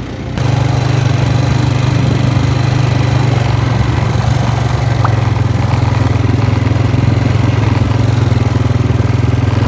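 Quad (ATV) engine running under throttle while being ridden. It picks up about half a second in, then holds a steady, even note.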